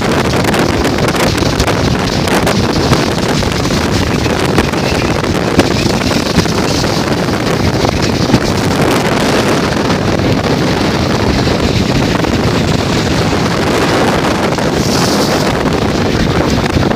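Strong wind buffeting the microphone, a loud steady rush with no let-up.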